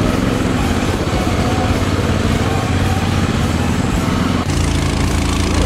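Mud mower's small engine running steadily, with a sound that shifts abruptly near the end.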